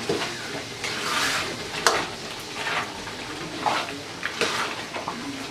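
A spatula stirring a thick, bubbling jujube and tamarind pickle in oil in a kadai, with a steady sizzle and a scrape of the spatula against the pan about once a second.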